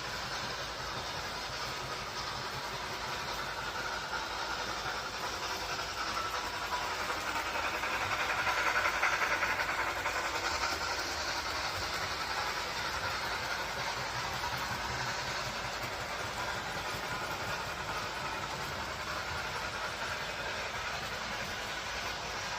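A train rolling along the track with a steady rushing and rattling noise that swells about a third of the way in, then eases off.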